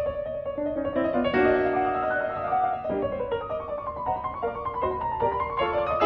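Background piano music with a flowing melody.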